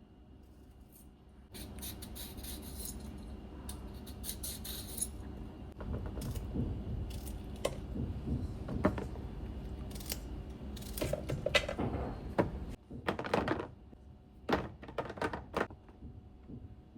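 Groceries and kitchen containers being handled: packaging rustling with many small clicks and taps, then a few sharper clatters of hard items set down near the end.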